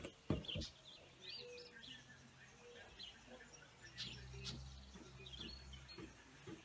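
Faint outdoor background with small birds chirping now and then, short arched calls. A couple of brief low knocks just after the start, and a low steady hum comes in about four seconds in.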